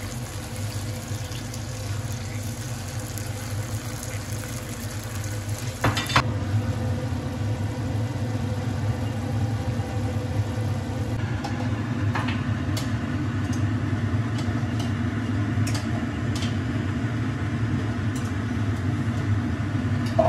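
Fish roe and fish pieces in tomato sauce simmering and sizzling in a frying pan over a steady low hum, a little louder from about six seconds in, with a few sharp clicks.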